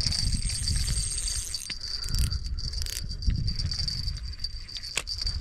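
Steady high-pitched chirring of insects, with irregular low rumbling on the microphone and a single sharp click about five seconds in.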